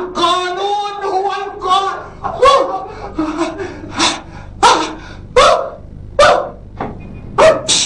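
Raised voices of a man and a woman in a scuffle: agitated talk, then a run of short, sharp cries a little more than one a second.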